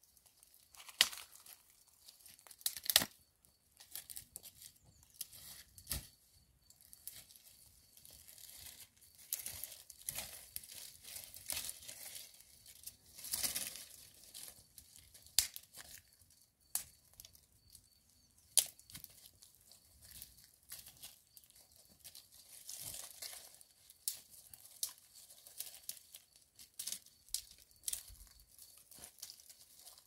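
Dry twigs and brushwood snapping and crackling in irregular sharp cracks, with rustling between them, as sticks are broken off the bushes to feed a small twig fire that is just catching.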